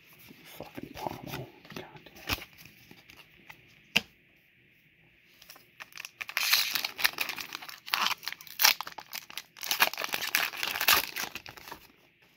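Foil booster pack wrapper being torn open and crinkled: a run of ripping and crackling from about six seconds in until near the end. Before that, soft clicks of trading cards being handled, with one sharp click about four seconds in.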